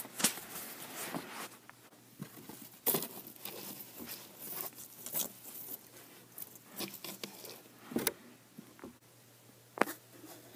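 Handling noise: fabric and plush toys rustling against the camera, with scattered soft knocks and clicks at irregular intervals.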